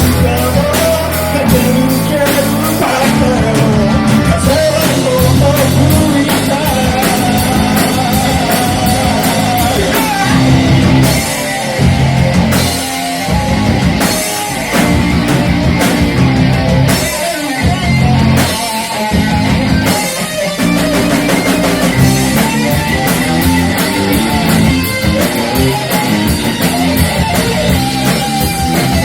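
A rock band playing loudly live, with guitars and a drum kit.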